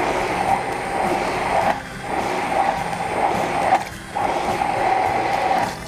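Hand-held immersion blender running in a tall jug of runny beer, flour and squid-ink batter, with a steady motor whir. It cuts out briefly about two seconds in, again about four seconds in, and near the end.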